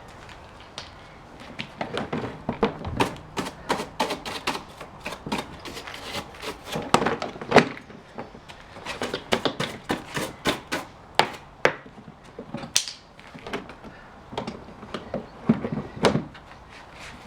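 Hand work on a plastic chipper-shredder housing and its parts: irregular clicks, taps and knocks, some in quick runs, as parts and tools are handled.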